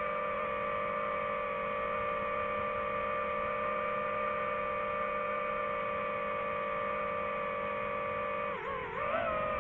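Background music: one long held synth note, steady in pitch, that begins to bend and waver near the end.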